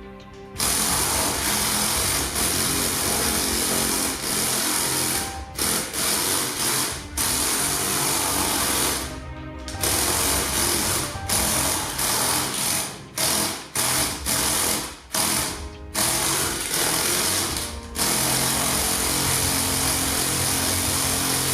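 LEGO Technic 42065 tracked model driving under remote control: its small electric track motors whirring with the rattle of the gears and plastic tracks, stopping briefly and starting again many times as it is steered.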